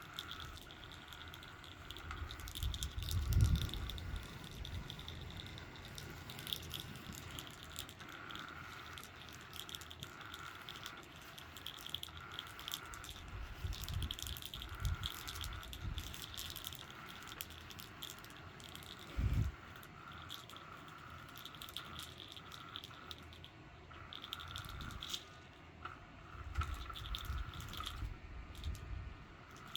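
Small battery motor of a spinning floor cat toy whirring on its slow setting, its pitch wavering, with light rattling and clicks and a few dull thumps. The motor is old and, by its owner's account, working but probably not well.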